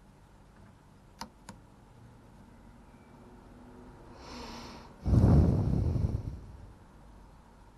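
Two light clicks, then a quick intake of breath and a loud, gusty exhale close to the microphone: a sigh.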